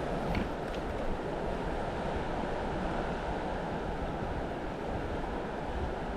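Steady rush of flowing river water, with a few faint clicks in the first second.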